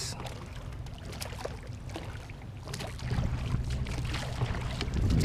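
Rowing a small boat: oars working in their oarlocks and water splashing and trickling around the hull, with scattered small clicks. A low hum comes up about three seconds in.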